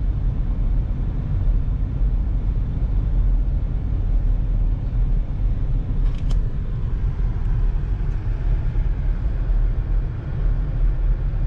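Steady low rumble of a car's engine and tyres while driving slowly, heard from inside the cabin, with a brief click about six seconds in.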